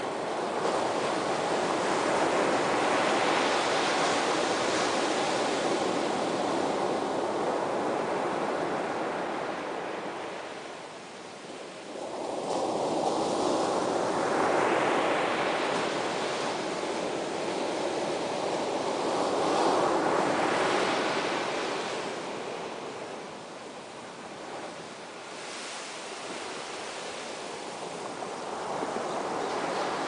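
Ocean surf: waves breaking and washing ashore in a steady rush that swells and ebbs, with three big surges and quieter lulls between them.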